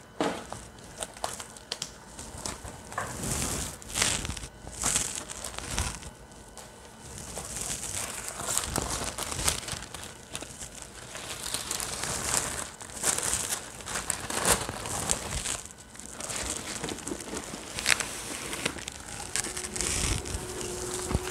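Tissue paper crinkling and rustling in irregular bursts as it is unfolded inside a gift box.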